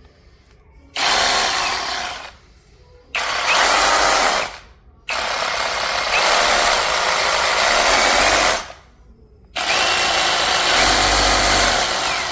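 Cordless brushless reciprocating saw run in four bursts, each starting and stopping abruptly; the third runs about three and a half seconds.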